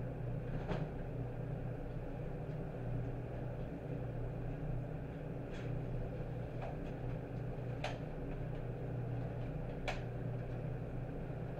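A steady low machine hum, with a few scattered sharp knocks and clicks.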